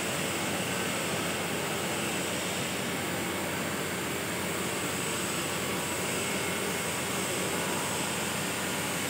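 Steady hiss of electric arc welding on the joint between a steel pipe tee and a flange, running evenly without breaks.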